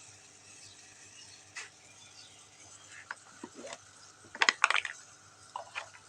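A few sharp clicks and clatters of hard objects knocking together, the loudest cluster about four and a half seconds in, over a faint steady hum.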